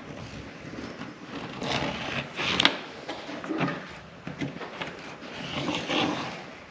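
Irregular scratching and rubbing with small knocks: a marker tracing around an old race-car door laid on a new body panel, and the panel being handled.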